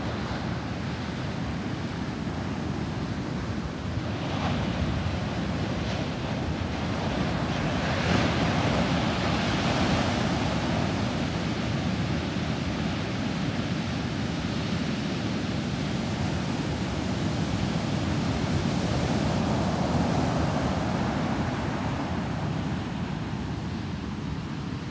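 Large ocean waves breaking near the shore, a continuous rushing roar of surf and churning white water that swells louder twice as bigger waves crash.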